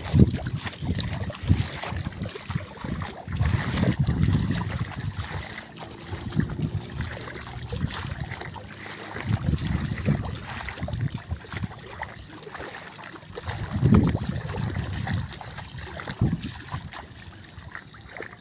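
Wind buffeting the microphone in uneven low gusts, with water sloshing and splashing as feet wade through shallow water.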